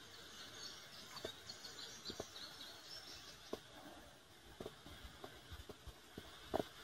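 Faint birds chirping over quiet river ambience, with about eight soft, scattered taps; the loudest tap comes near the end.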